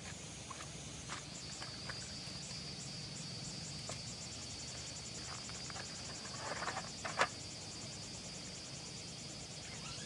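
Insects chirping in a steady, rapid, high-pitched pulse. Light scattered clicks run under it, and about seven seconds in a short rustle ends in a sharp click as camping gear is handled on gravel.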